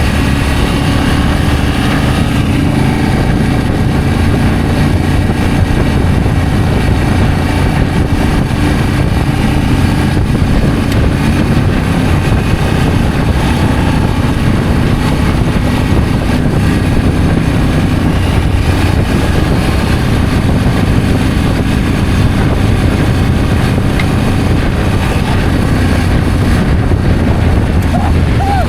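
Motorcycle engine running steadily while riding, with a steady rush of noise over it and no big changes in speed.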